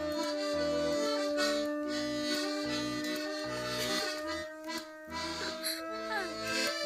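Diatonic accordion playing a folk tune over a steady, rhythmic oom-pah bass, with a dog howling along on long held notes; near the end a howl slides down in pitch.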